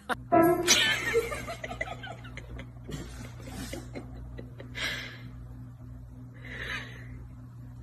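A person laughing loudly for about a second and a half just after the start. After that comes a steady low hum with two short, soft rustling sounds later on.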